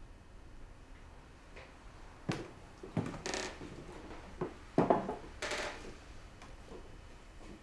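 A few sharp knocks and clinks of a wine bottle and glass being handled and set down on a wooden table, the loudest a little under halfway through, with short rustling stretches between them.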